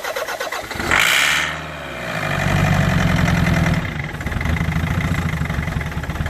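Land Rover Freelander L-series 2.0 four-cylinder turbodiesel cranking on the starter, then firing with a loud burst about a second in and running unevenly for a few seconds before fading near the end. It will not keep running, a hard-start fault traced to air leaking into the fuel pipes.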